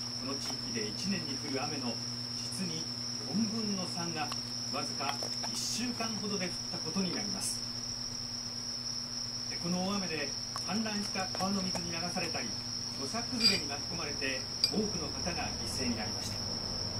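A steady, unbroken high-pitched tone runs throughout. Under it are faint, muffled voices from a television news broadcast, and two sharp clicks come near the end.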